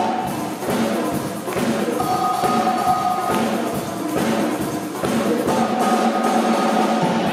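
Live brass band playing an upbeat tune: saxophones, trumpets and a sousaphone playing held chords over a steady beat, with an electric bass.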